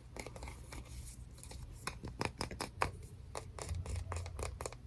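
Fingernails tapping and clicking on small plastic trinkets: quick, irregular sharp taps, several a second, with a faint steady low hum underneath.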